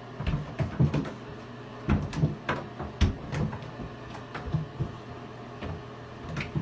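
A series of irregular knocks, thumps and clicks, about two a second, over a steady low hum.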